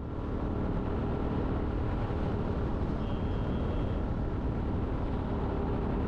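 Motorcycle engine running steadily with a low rumble.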